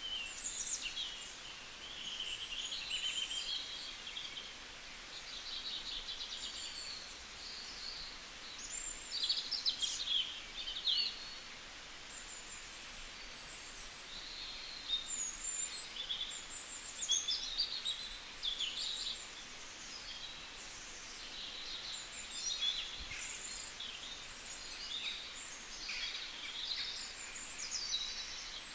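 Several birds chirping and calling in quick overlapping phrases, with short trills and bursts of chatter through the whole stretch over a faint steady background hiss.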